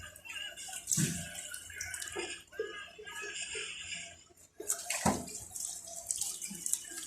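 Water running and splashing, uneven, with short irregular spurts.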